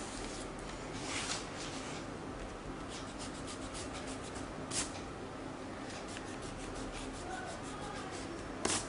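White eraser rubbing a pencil line off drawing paper: quick scratchy rubbing strokes with three louder swipes, about a second in, near the middle and near the end, over a steady faint hiss.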